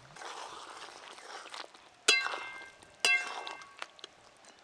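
Metal spatula stirring thick curry in a metal kadai, then two ringing clinks about a second apart as the spatula strikes the pan.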